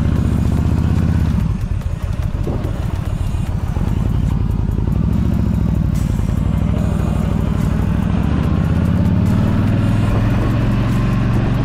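Yamaha V Star 1300 motorcycle's V-twin engine running under way, its note falling and rising as the rider eases off and opens the throttle, climbing steadily near the end.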